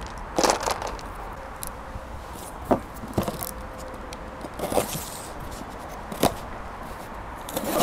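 Cardboard boxes and plastic wrapping being handled on a tabletop: scattered rustles, scrapes and light knocks, a few seconds apart.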